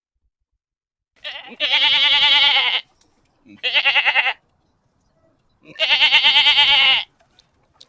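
Goat bleating three times: two long, quavering bleats with a shorter one between them.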